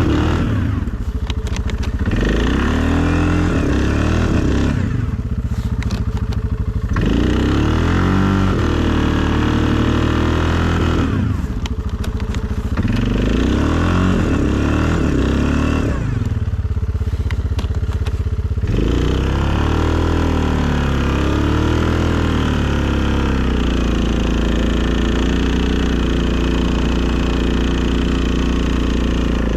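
2020 Suzuki KingQuad ATV engine running under load while plowing snow, repeatedly revving up and easing off, about four times, then running at a steadier speed near the end.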